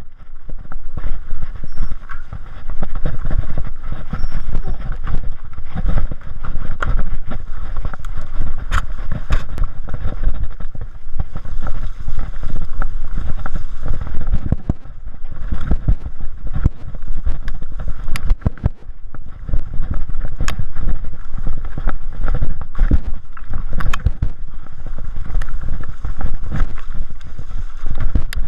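Mountain bike descending a forest dirt trail at speed: wind buffeting the microphone and tyres rumbling over the ground, with frequent knocks and rattles from the bike as it hits roots and bumps.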